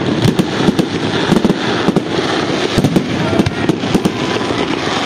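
Fireworks display: aerial shells bursting in rapid, irregular succession, a dense run of bangs and crackles several times a second.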